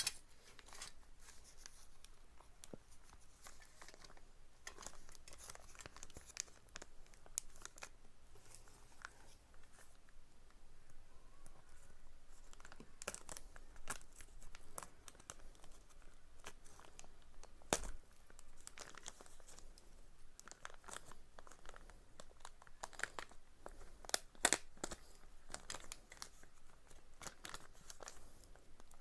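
Plastic packaging being crinkled and torn open by hand, with many irregular crackles and small clicks.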